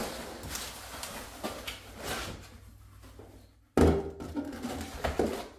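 Packing being handled: foam inserts and cardboard knocking and shifting, with plastic wrap rustling, and one loud thump about four seconds in as a piece is set down.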